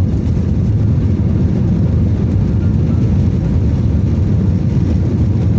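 Airliner landing: a loud, steady low rumble of engines and airflow.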